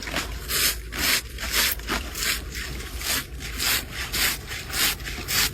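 Rhythmic scraping strokes, about two a second, evenly repeated.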